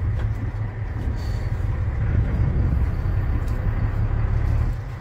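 Steady low rumble aboard a fishing boat at sea: the boat's engine running, mixed with wind and water noise.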